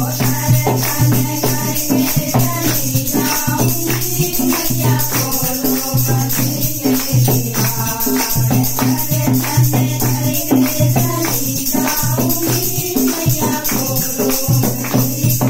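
Group of women singing a Navratri devotional bhajan in Hindi together, keeping time with steady hand clapping over a rhythmic percussion beat.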